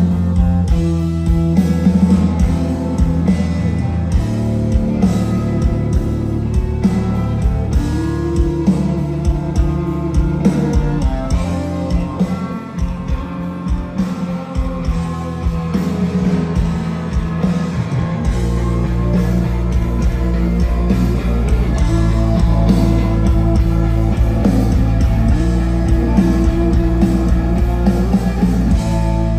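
Live rock band playing electric guitars, bass guitar and drums through a stage PA. The low end grows heavier and steadier about two-thirds of the way through.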